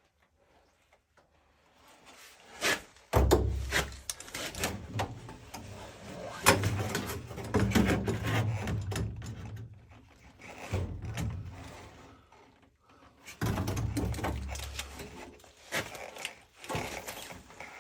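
Knocks, clanks and scraping from metal furnace parts being handled and pulled apart, in several bursts separated by short pauses, over a low rumble.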